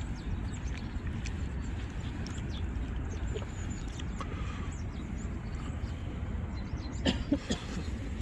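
Outdoor ambience: a steady low rumble with faint scattered high chirps and ticks, and a few louder clicks about seven seconds in.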